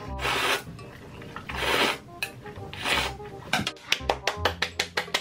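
Spicy instant noodles slurped loudly off chopsticks in three long pulls. Near the end, a quick run of sharp claps, about five a second.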